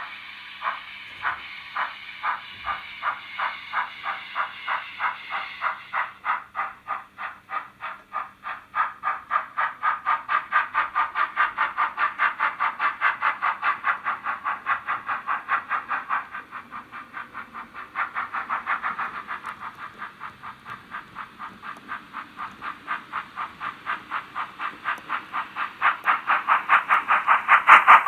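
Model BR 50 Reco steam locomotive's ESU V5 sound decoder, running the Henning Sound project through the model's original small speakers, playing steam exhaust chuffs. The chuffs speed up from about two a second to about four a second as the locomotive pulls away, and sound thin, with little bass.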